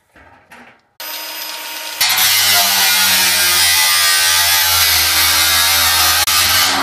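A small handheld power tool working on the steel lid of a drum. Its motor starts about a second in, then bites into the metal about two seconds in and runs on steadily with a loud buzzing grind.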